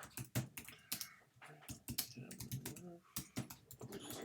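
Typing on a keyboard: a quick, uneven run of key clicks, several a second.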